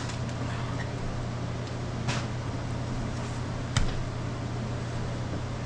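Steady low machine hum, with a brief scrape about two seconds in and a sharp knock a little before four seconds.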